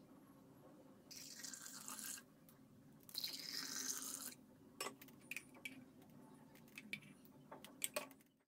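Soup poured in a thin stream into glass cups, two pours of about a second each, followed by scattered light clicks and taps.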